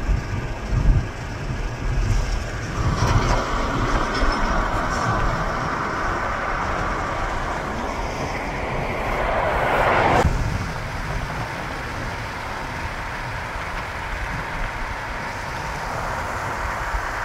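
Road and wind noise from a moving car. A louder rushing noise comes in about three seconds in, swells, and cuts off suddenly near ten seconds.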